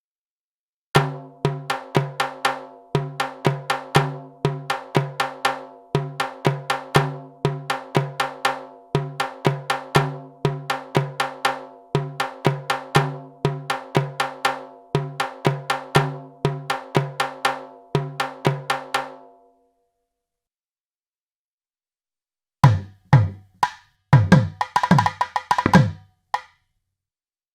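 Sampled Indian hand drum from the SwarPlug 4 virtual instrument, playing a steady rhythmic pattern of about three to four strokes a second over a ringing pitched tone. It stops, then plays a short phrase ending in a quick roll.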